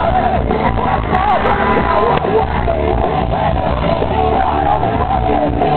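Live hard rock band playing loud through a large PA speaker stack, recorded from inside a jostling mosh pit.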